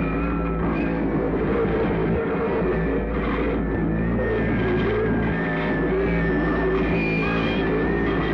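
Harsh noise music played from a cassette: a loud, dense, unbroken wall of noise layered with steady low droning tones and thin higher tones that shift in pitch.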